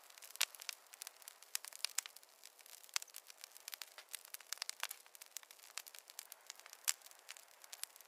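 Wood campfire crackling: irregular sharp snaps and pops over a soft, steady hiss.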